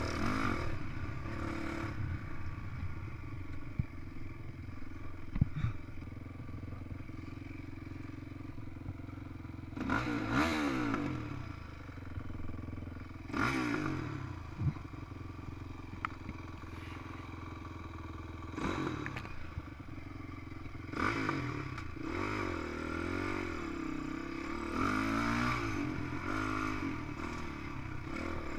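Honda CRF450X's single-cylinder four-stroke engine running as the dirt bike is ridden. The throttle is opened in about five rising-and-falling bursts between stretches of steadier running, with scattered knocks and rattles from the bike over rough trail.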